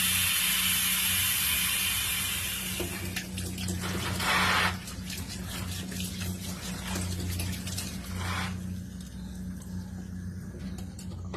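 Pressure cooker releasing its pressure: a loud hiss of escaping steam that sets in at once and fades over a few seconds, then two shorter hissing spurts about four and eight seconds in, over a steady low hum.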